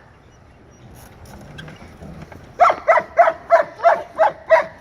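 German shepherd dog barking in a quick run of seven barks, about three a second, starting a little past halfway through.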